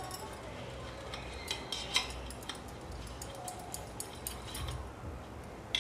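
Handheld metal grater rubbing over a block of mozzarella cheese, a faint scraping with light clinks of the grater against the steel plate, one sharper clink about two seconds in.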